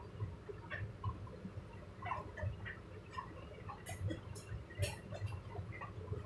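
Front-loading washer-dryers running a wash cycle: the drum turning with an uneven low rumble, and scattered small clicks and knocks, a few sharper ones about four to five seconds in.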